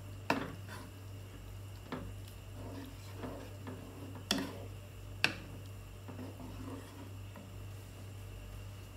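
A wooden spatula stirring thick meat sauce in a pan, knocking sharply against the pan a few times, loudest about four and five seconds in. A steady low hum runs underneath.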